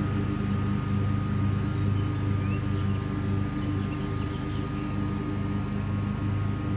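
Commercial Bobcat mower engine running steadily at a constant speed. A few faint, short high chirps come in about midway through.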